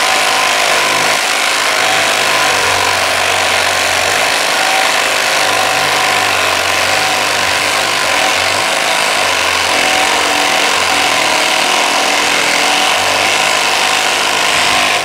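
Brushed 12-volt Milwaukee impact driver hammering steadily without a break as it drives a 6-inch Spax screw into wood. It is running on a 4 Ah battery, which it needs to finish the screw.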